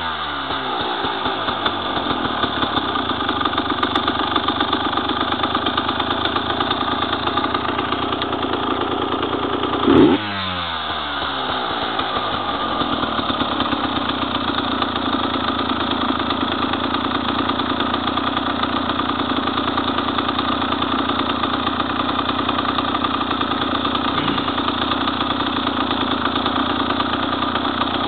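KTM two-stroke enduro motorcycle engine running at a steady idle, blipped once about ten seconds in, the revs falling back after. The riders blame its running trouble on carburetion.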